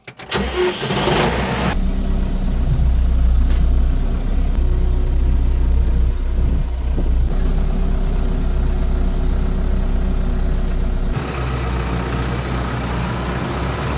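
Farm tractor's diesel engine running steadily, heard from inside the cab, with a loud rush of noise in the first second or two. The sound shifts a little about three seconds before the end.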